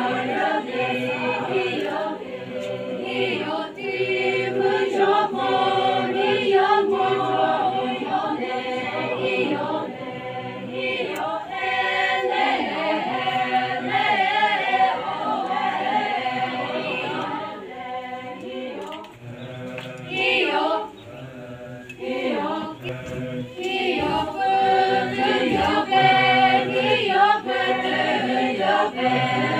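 A large group of voices singing a folk song together, unaccompanied, in phrases with short breaks between them.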